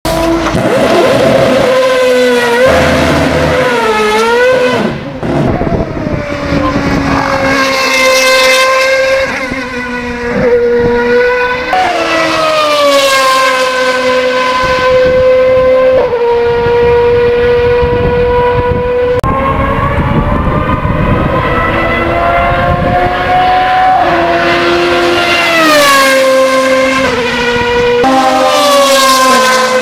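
Honda HSV-010 Super GT race car's V8 engine, first revved up and down, then accelerating hard through the gears. The pitch climbs steadily and drops sharply at each upshift, several times over.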